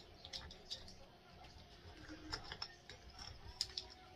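Faint, irregular small clicks and scrapes of a glass light shade being fitted to a ceiling fan's light-kit fitter, with its thumbscrews turned by hand against the glass.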